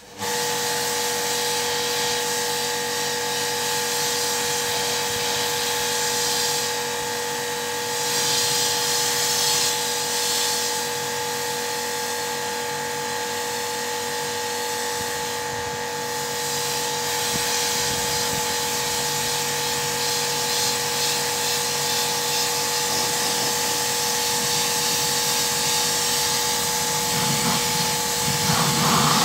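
Kärcher HD 5/15 C pressure washer running under load, its electric motor and pump giving a steady whine, while the lance sprays water at high pressure with a constant hiss. This is the machine's test run after a pump repair.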